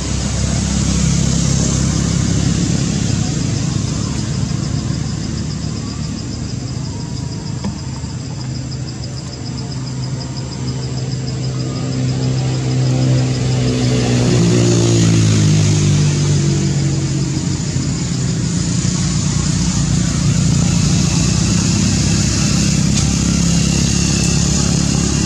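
A motor vehicle engine running with a steady low hum. Its pitch drops about halfway through, then holds steady.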